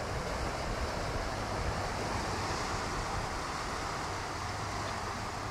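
Ocean surf breaking and washing, a steady rushing that swells slightly midway, with some wind on the microphone.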